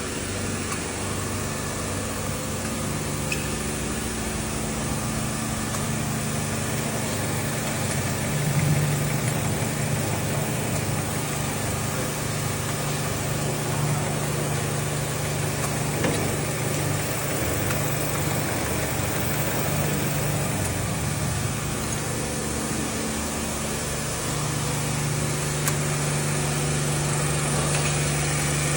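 Steady low mechanical hum, like an engine or machine idling, with a couple of faint knocks.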